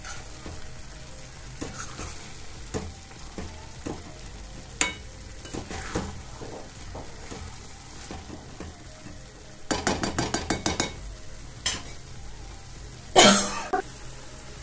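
Steel spoon stirring and scraping thick roti curry in a pan on a low flame, with a gentle sizzle underneath; the curry is stirred a little at a time so it doesn't settle and stick to the bottom, and oil is starting to separate as it finishes cooking. About ten seconds in, a quick run of clicks, and a louder knock near the end.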